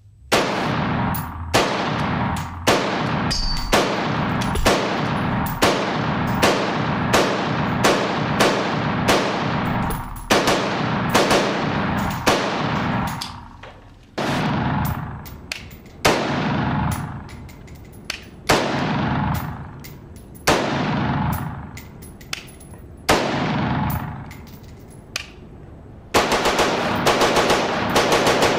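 AR-15-style rifle fired semi-automatically on an indoor range, each shot ringing off the walls: rapid strings of shots at first, then single shots about two seconds apart with long fading echoes, then a fast string again near the end.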